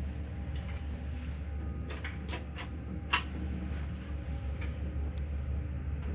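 A 1993 MLZ passenger elevator running with a steady low hum. A few sharp clicks come about two to three seconds in, the loudest near three seconds.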